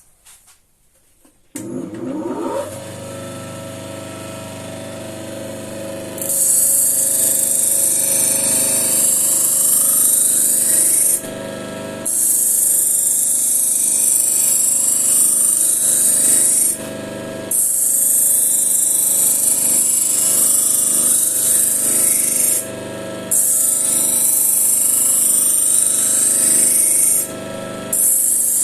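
Grinder motor starting about 1.5 s in and spinning up to a steady hum. From about 6 s a knife edge is held against the spinning solid paper wheel charged with 10-micron diamonds, giving a loud high hiss in passes of about five seconds with short breaks between them.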